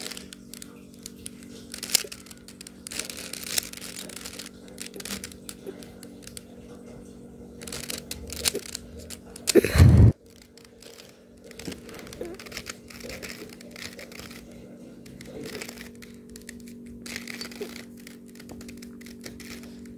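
3x3 Rubik's cube being twisted by hand: quick, irregular plastic clicks and clacks as the layers turn, over a steady low hum. A louder thump about halfway through.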